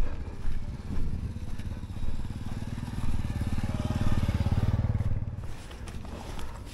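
Small motorcycle engine running at low revs with a fast, even pulse. It grows louder over a couple of seconds, then drops away about five and a half seconds in.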